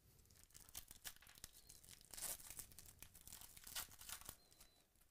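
Foil wrapper of a Certified basketball card pack being torn open and crinkled by hand, with the loudest rips about two seconds in and again near four seconds.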